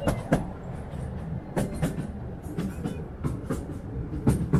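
Miniature railway train running on its track: wheels clacking over rail joints in pairs about a quarter second apart, roughly once a second, over a steady low rumble.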